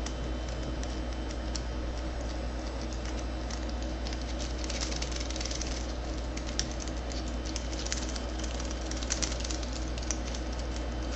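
Lock pick working the pins of a Garrison pin-tumbler door cylinder with a Weiser keyway, under light tension: small irregular metal clicks and scratches, with two denser stretches of scraping, about halfway and again near three quarters of the way through. A steady low hum lies underneath.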